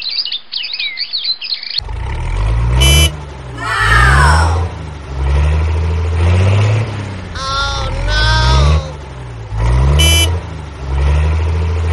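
A tractor engine sound effect laid over a toy tractor's movement. It runs with its pitch rising and falling every couple of seconds, and sliding cartoon-like tones recur over it.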